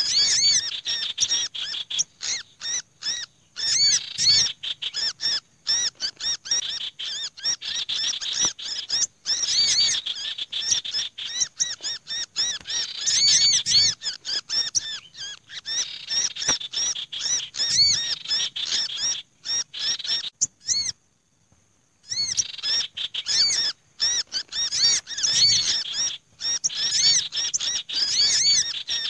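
Bird-lure (pikat) recording for small birds: a mix of the sirtu's harsh chattering, a sunbird's busy calls and a black-naped monarch's calls as if it were caught and pinned (kejepit). It is a dense run of rapid high chirps and trills, with a short pause about three quarters of the way through.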